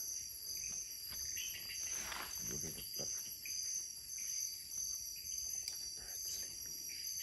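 Night insect chorus of crickets and other insects: steady high-pitched trilling at several pitches at once, one of them pulsing about twice a second.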